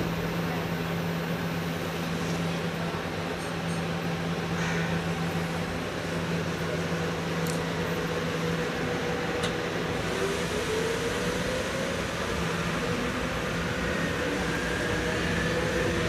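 Nagoya Municipal Subway 3000-series chopper-controlled electric train heard from inside the car as it pulls away. There is a steady low hum at first, then from about ten seconds in the chopper control and traction motors give rising whines as the train gathers speed.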